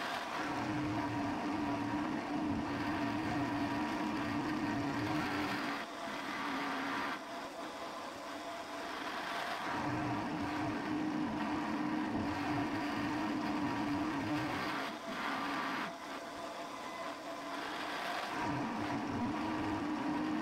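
Aciera F1 milling machine's spindle running with a steady hum as its cutter mills ratchet teeth into thick brass at full depth, a pass that was harder work than expected. The cutting sound is loud for several seconds at a time and eases off twice, about six and sixteen seconds in, between passes.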